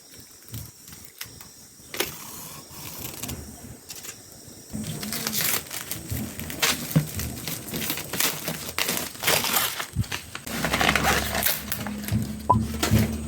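Parcel packaging being handled and opened by hand: irregular crinkling, rustling and crackling, sparse at first and much busier from about five seconds in.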